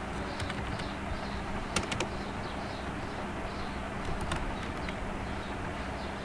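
A few scattered computer keyboard keystrokes, short sharp clicks, over a steady hiss and low hum from the recording.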